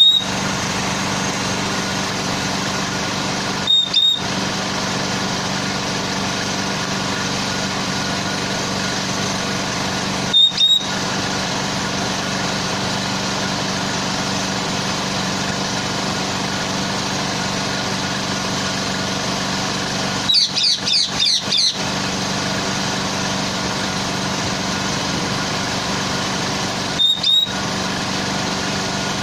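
Steady drone of the boom truck's engine idling. Now and then a short high chirp breaks in, with a quick run of several about twenty seconds in.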